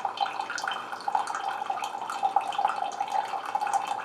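Mainstays single-serve coffee maker dispensing freshly brewed coffee into a cup: a steady trickle and patter of hot coffee streaming from the spout into the liquid below.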